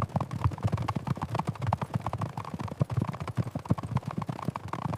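Dense, irregular clatter of many footfalls, several to the second, like a herd or a group moving fast.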